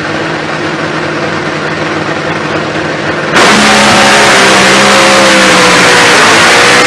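Supercharged nitromethane V8 of a Funny Car drag racer at full throttle, heard from onboard and loud enough to overload the microphone. A little over three seconds in it gets abruptly louder, with the engine's pitch dipping and then rising.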